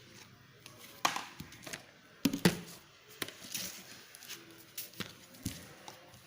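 Homemade slime being squeezed and poked by hand, giving irregular sticky clicks and squelches, the loudest about a second in and two and a half seconds in.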